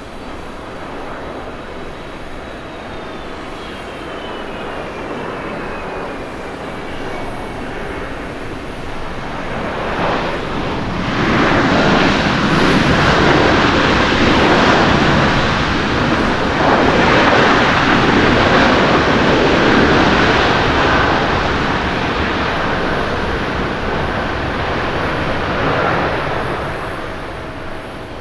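Airbus A330-300 jet engines during landing rollout. A thin whine falls in pitch over the first several seconds. About ten seconds in, a loud roar of reverse thrust swells up, holds for around ten to fifteen seconds, then dies away as the airliner slows on the runway.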